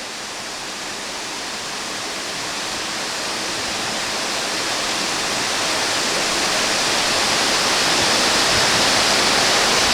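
Waterfall: a steady rush of falling water that grows gradually louder.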